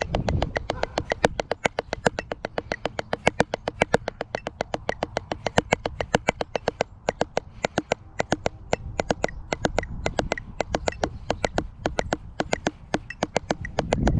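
Drumsticks striking an octagonal practice pad in a steady run of crisp strokes, about eight a second, with some strokes accented louder: a snare drumline exercise played on the pad.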